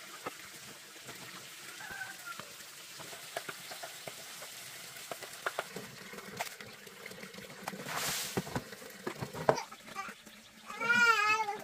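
Scattered knocks and a brief splash of water as wet slabs of pork are handled and lifted from basins. Near the end, the loudest sound: a short animal call whose pitch wobbles up and down, lasting about a second.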